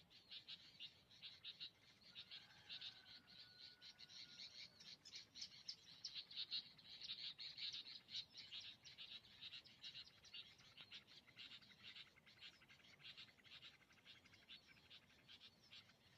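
Faint, rapid, continuous chirping from small animals, with a short steady whistle about two and a half seconds in.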